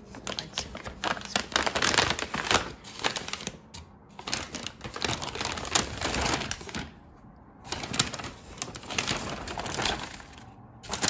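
Brown kraft-paper shopping bag rustling and crinkling as hands reach in and pull out a pair of shoes, in three bouts with short pauses between.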